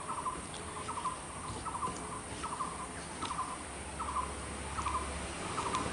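A small animal calling over and over: short rattly calls, all at one pitch, about two or three a second.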